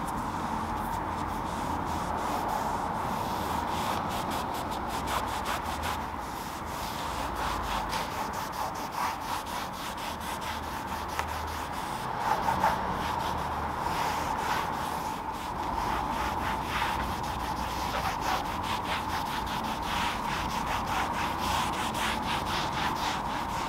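Cloth rubbed back and forth over a car's plastic running board and lower trim as a trim coating is wiped on and buffed off: repeated wiping strokes over a steady hum.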